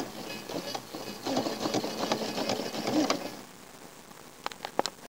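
Sewing machine stitching in a short run of about two seconds, starting about a second in, followed by a few light clicks near the end.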